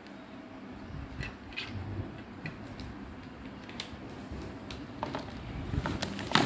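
Packaging being handled: plastic bags around vacuum cleaner attachments crinkling, with light clicks and knocks of plastic parts and cardboard, over a low steady hum. The handling gets busier and louder near the end.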